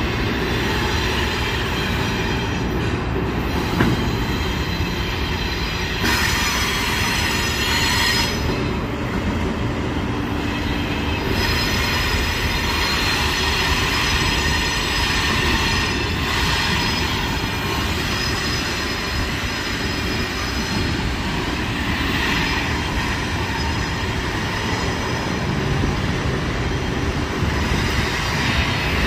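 CSX freight train rolling by on a curve: a steady rumble of the cars, with the steel wheel flanges rubbing against the rail in high squealing tones that shift and break off every few seconds.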